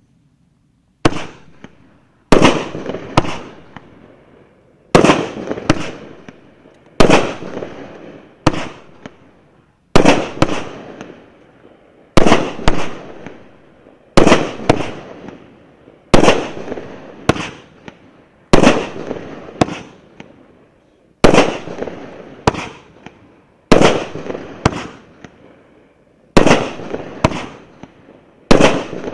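A 1.2-inch, 16-shot consumer firework cake firing its shots one after another, about one every two seconds. Each shot is two sharp bangs about half a second apart, trailing off in a fading tail.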